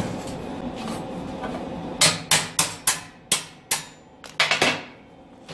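Hammer striking a steel axle shaft being fitted to a cart frame: about a dozen sharp metallic blows with short ringing tails, starting about two seconds in and ending in a quick cluster of four.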